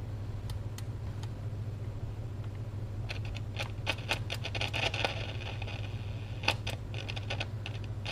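GE P975F transistor radio on the AM band picking up no station, only a steady low hum and faint static. From about three seconds in come scratchy crackles and clicks, the kind the owner puts down to dirty potentiometers that need cleaning.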